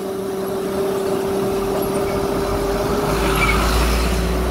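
Battery-powered electric motorbike riding along, its motor giving a steady hum over road and wind noise; a deep engine rumble swells in about a third of the way through as a box truck is passed.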